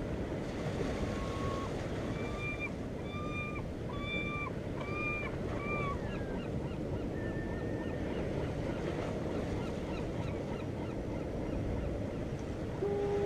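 Steady ocean surf washing, with a bird giving a series of about six short honking calls in the first half, then a few fainter calls. A steady low tone starts just before the end.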